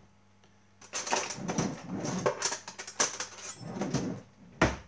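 Metal cutlery and kitchen utensils clinking and clattering as they are handled, an irregular run of knocks and rattles with a sharper knock near the end.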